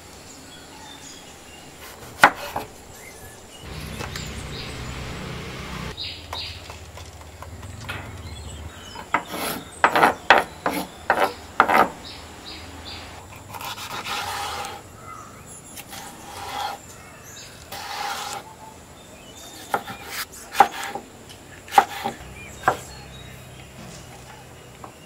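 Large kitchen knife chopping green capsicum on a wooden cutting board: sharp knocks of the blade on the board, one about two seconds in, then quick runs of chops in the middle and near the end, with rubbing and rustling of the vegetables between.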